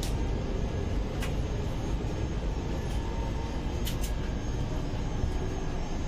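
Steady low rumble of an Indian Railways passenger coach running on the track, heard from inside the coach's corridor. A few sharp clicks or knocks come through it, one about a second in and two close together near four seconds.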